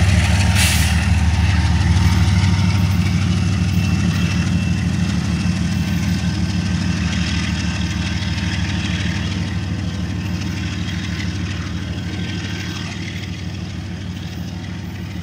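GE ES44DC diesel locomotive, pushing as the rear distributed-power unit of an intermodal train, its V12 engine running with a deep, steady rumble that slowly fades as it moves away.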